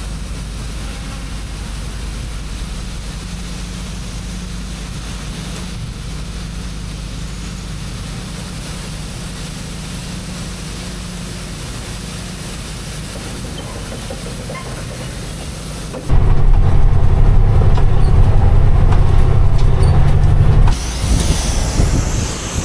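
Steady low machine rumble while shelled corn drains out of a hopper-bottom grain trailer. About 16 s in it gives way to a much louder, steady low engine drone from inside a semi-truck cab, which drops away about 21 s in.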